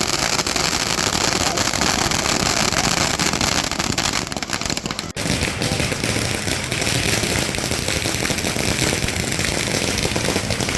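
Firecrackers going off in dense, rapid crackling, many at once with no let-up, briefly dipping about five seconds in.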